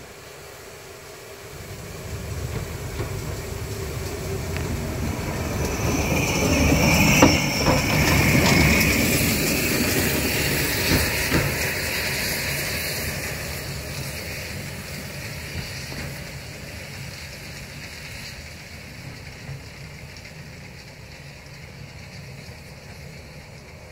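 Small steam locomotive passing close by: its steam hiss and the clatter of its wheels on the rails build to a peak about a third of the way in, then slowly fade as it moves away.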